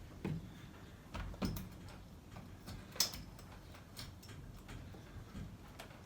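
A few scattered light knocks and clicks from hands working with small hardware against the wall, the sharpest about three seconds in.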